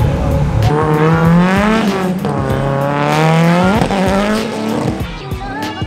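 Drift car's engine revving hard with tyre squeal. The pitch climbs, drops about two seconds in, climbs again, then falls away.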